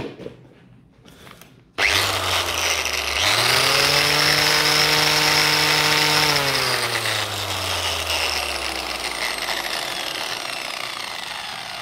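A few handling clicks, then a Hitachi 115mm angle grinder with a wire cup brush starts suddenly about two seconds in and its motor whine rises to full speed. It runs steadily for a few seconds, then slowly winds down with falling pitch as it coasts after switch-off. It now runs without being shaken, its loose block-connector wires freshly soldered.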